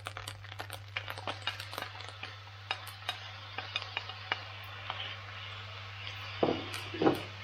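A spatula clinking and scraping against a frying pan as fried rice is stirred, with a light frying hiss underneath. There are many quick taps and two louder knocks near the end.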